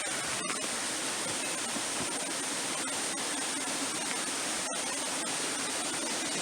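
Steady rush of falling water from a waterfall and mountain stream in a rocky gorge, broken by two momentary dropouts.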